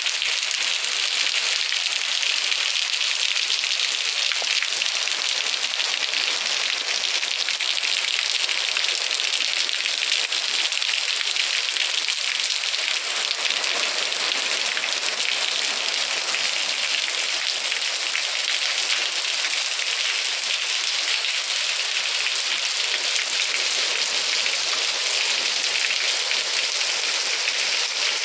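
Steady rain falling, an even hiss that keeps on without pause.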